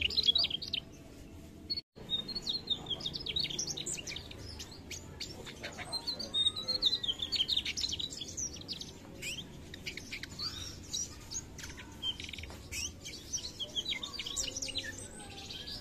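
Mugimaki flycatcher singing: quick, high twittering phrases of short chirping notes, one after another, with a brief break about two seconds in.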